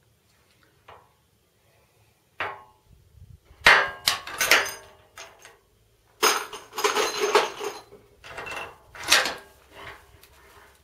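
Metal clanks and rattles of a Barrett 99-1 .50 calibre single-shot rifle being handled and reloaded between shots. Two light clicks come first, then three bursts of clattering with a slight ring, the loudest about four seconds in.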